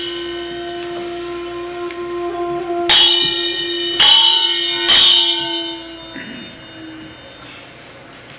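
A bamboo flute (bansuri) holds one long, steady low note that fades out about seven seconds in. Over it, a hand-held metal bell is struck three times, about a second apart, each stroke ringing out.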